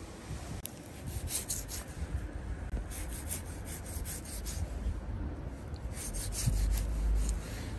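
Kitchen knife blade drawn back and forth through raw oxtail, cutting meat and fat off the tail bones, in three runs of quick scraping strokes.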